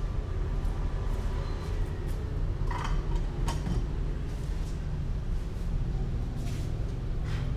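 Steady low rumble of an LPG gas burner running under a large wok, with a few faint clicks about three seconds in and again near the end.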